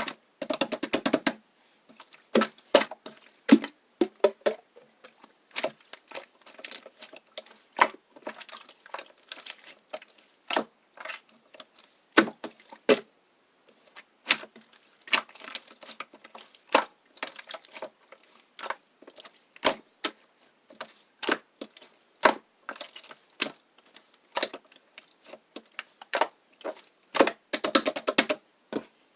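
Slime being squeezed and worked by hand, giving irregular sharp clicks and air-bubble pops, with rapid runs of clicking near the start and near the end.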